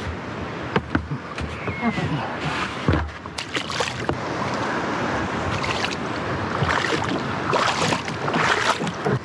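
Kayak paddle strokes splashing and dripping in shallow water, a splash roughly every second, with a few sharp knocks among them, the heaviest a dull thud about three seconds in.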